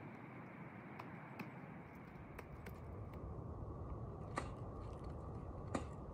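Steady low rushing noise crossed by scattered sharp clicks and taps, the loudest about four seconds in and another near the end.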